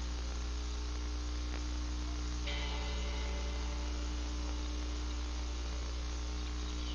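Steady electrical mains hum with a low buzz and hiss, raised because the recording's volume was turned up; a brighter hiss comes in about two and a half seconds in.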